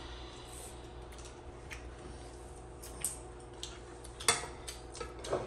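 Spoons and other utensils clinking now and then against plates and bowls during a meal. There is a louder clink about four seconds in.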